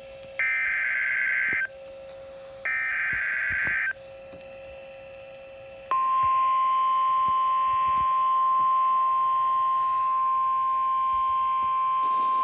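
Emergency Alert System SAME header: two harsh warbling digital data bursts, each about a second long, with a faint low hum in the gaps. About six seconds in, a single steady 1050 Hz weather-radio warning alarm tone starts abruptly and holds, signalling a warning to follow.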